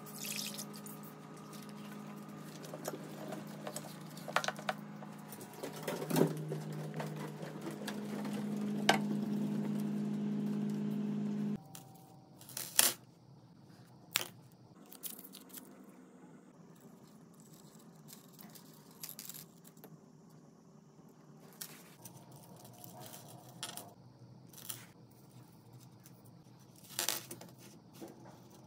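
A steady low hum with a few sharp clicks at a stainless-steel kitchen sink, then a handful of crisp snips as scissors cut a drinking straw, followed by small clicks and clinks of a gold chain necklace being handled.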